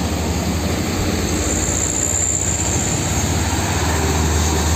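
Large diesel truck driving past, its engine a steady low rumble over road noise, growing a little louder near the end.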